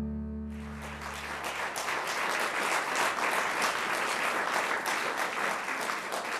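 The last bowed chord of four double basses dying away, then audience applause starting about half a second in and carrying on.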